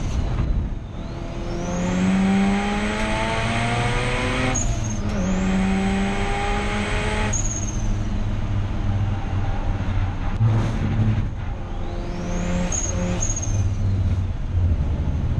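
Turbocharged 13B rotary engine of a Mazda RX8 race car at full throttle. The revs climb in two long pulls with a break at each upshift, about four and a half and seven and a half seconds in, and a high whine rises with them. It then runs lower and unevenly for a few seconds before pulling up again twice near the end.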